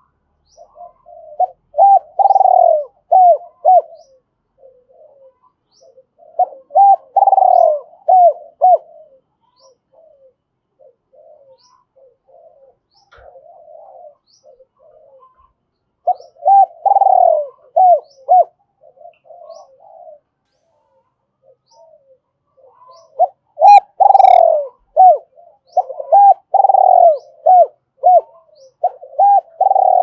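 Spotted dove cooing in its territorial call, used as a lure call to draw other doves: phrases of several rounded notes. The phrases come in four bouts separated by pauses of a few seconds, the last bout longer, with phrases following one another near the end.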